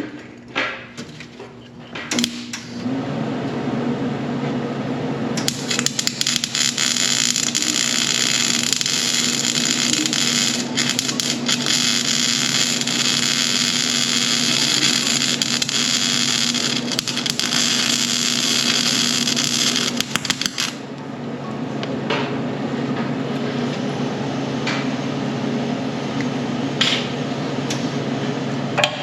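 Electric arc welding on a steel mower bracket. A welding machine's steady electrical hum starts a few seconds in, then a long continuous crackling, hissing arc runs for about 15 seconds and stops about 21 seconds in, leaving the hum running. A few light knocks come just before the hum starts.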